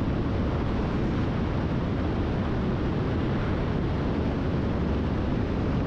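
Steady drone of a single-engine light airplane's engine and propeller in flight, heard inside the cabin through an open intercom or headset microphone.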